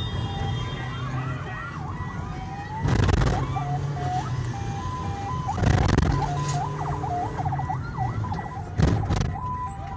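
Electronic vehicle siren sounding over the car's road noise, its pitch gliding up and down and stepping back and forth between two tones. Loud rushes of noise break in three times, about three seconds apart.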